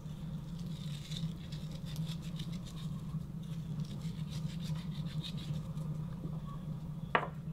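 Scratchy rubbing and rasping from dry seasoning (salt, pepper and dried herbs) being put onto a raw rabbit carcass, over a steady low hum. A sharp knock sounds near the end.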